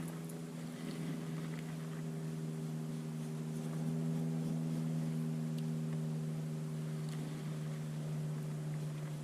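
Boat motor running steadily with an even, low hum, slightly louder around the middle.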